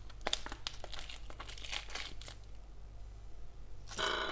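Plastic wrapping of a pack of imitation crab sticks crinkling and crackling as it is handled and unwrapped, with a louder burst of crinkling near the end.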